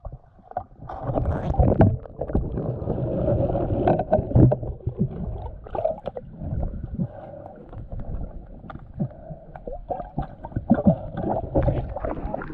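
Muffled sloshing and bubbling of water around a camera held underwater by a snorkeler, with many irregular knocks and thumps.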